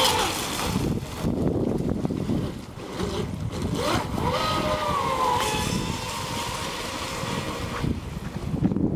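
Battery-electric RC speedboat running at full speed on a 4S LiPo: a motor whine that rises and then falls in pitch as the boat passes close, about four seconds in, with wind rumble on the microphone.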